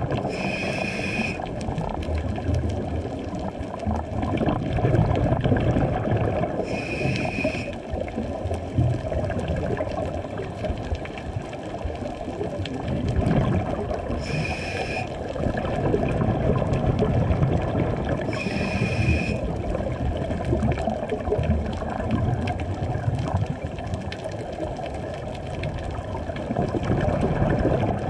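Scuba regulator breathing heard underwater: a short hissing inhale through the demand valve with a faint whistle about every five to eight seconds, and low gurgling exhaled bubbles in between.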